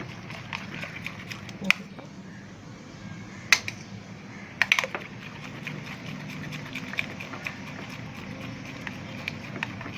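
A few sharp clinks of a kitchen utensil against a bowl holding whipped cream, spaced several seconds apart, with a small cluster about halfway through, over a steady low hum.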